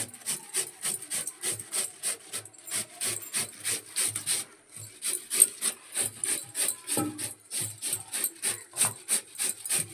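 Quick, even hand-scraping or cutting strokes on potatoes, about four or five a second, with a brief pause a little before halfway.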